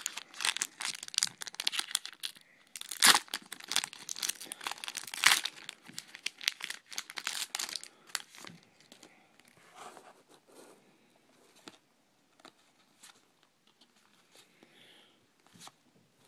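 Trading card packs being torn open and their wrappers crinkled, busy for about the first eight seconds, then thinning to occasional faint rustles and clicks.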